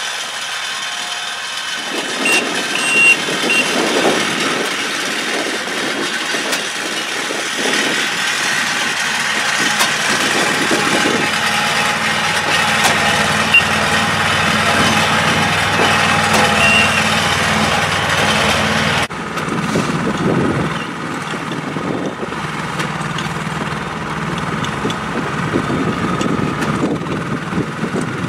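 Engines of rail-mounted tie-gang track machines running as the machines travel along the rails, with a few short high beeps about two to three seconds in. About two-thirds of the way through, the sound changes abruptly to another track machine running.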